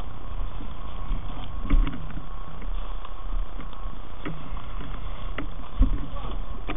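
Steady rushing hiss of a fire hose handline stream soaking smouldering, steaming debris, with scattered knocks and clatters from the rubble.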